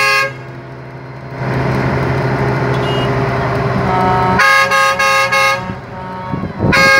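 Semi-truck tractor's air horns sounding a multi-note chord. One blast cuts off just after the start, a few short blasts come about four and a half to five and a half seconds in, and a long blast starts near the end. A diesel engine drones steadily between the blasts.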